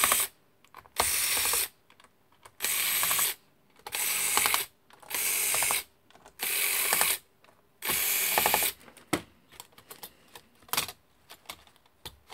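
Electric screwdriver whirring in six short runs of under a second each, with its gears clicking, as it backs out the screws holding a laptop heatsink to the motherboard. After about 9 seconds come light scattered clicks and taps.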